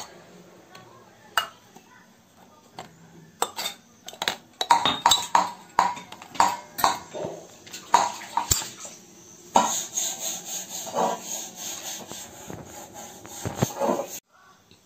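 Small stainless steel tumblers clinking and knocking against each other and a plate as they are handled, in a quick, irregular run of sharp clinks. This gives way to a few seconds of rough handling noise that cuts off abruptly near the end.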